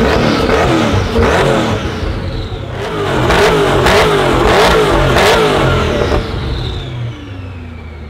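Koenigsegg Agera's twin-turbo V8 revving: a sharp rev at the start, then a quick run of about four short throttle blips, the revs falling and fading near the end.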